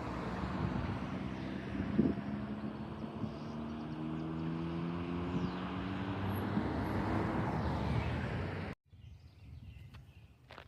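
Road traffic: a passing vehicle's engine with tyre noise, its tone rising slowly, cutting off suddenly near the end to quiet outdoor ambience with a few faint bird chirps.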